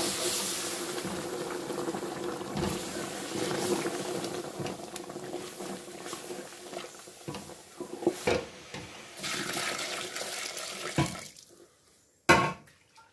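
Flour gravy boiling and bubbling in a large aluminium pot while a wooden spoon stirs it, with occasional knocks of the spoon against the pot. The bubbling drops away near the end, followed by one sharp knock.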